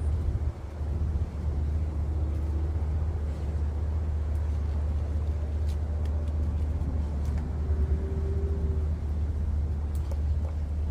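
Steady low rumble with the loudness wavering, and a few faint clicks.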